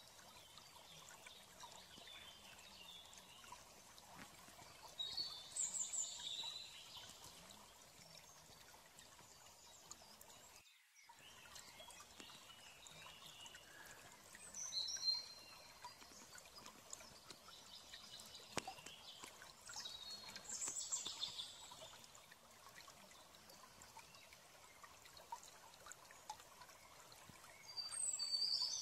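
Faint steady trickle of water, with four short bursts of high chirping spread through.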